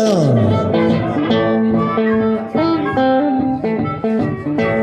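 Live blues played on guitar and harmonica: picked guitar notes under sustained harmonica tones, with a note sliding steeply down in pitch right at the start.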